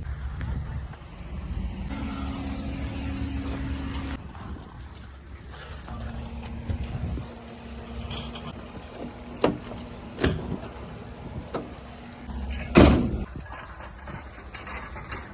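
Steady high-pitched drone of crickets over a low engine rumble, with a few sharp knocks, the loudest about 13 seconds in.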